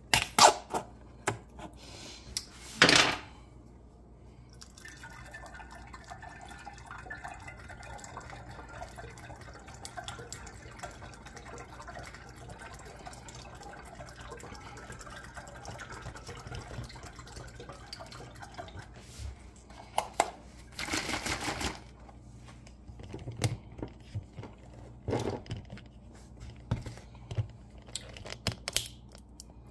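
A knife jabbing through a juice carton's seal, a few clicks and a sharp tearing burst about three seconds in. Then red fruit juice is poured from the carton through a plastic funnel into a glass gallon jug, a steady pour lasting about fifteen seconds. A short loud burst of noise about twenty seconds in, and a few knocks near the end.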